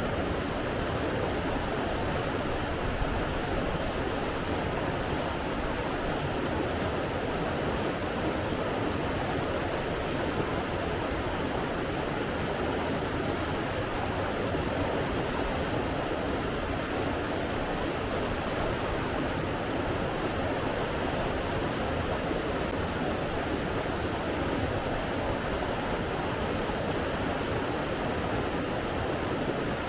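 Steady, unbroken rush of running water, even throughout with no separate splashes or events.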